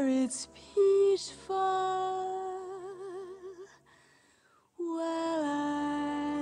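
A slow 1950s film-musical song: a singing voice holds long notes with vibrato over soft orchestral backing. The music drops out briefly about four seconds in, then a new held note starts.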